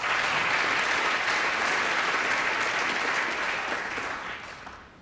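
Snooker crowd applauding a good shot. The clapping is dense and steady, then dies away near the end.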